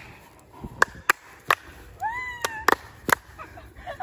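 About half a dozen sharp knocks at uneven intervals. A short, high cry rises and falls about two seconds in.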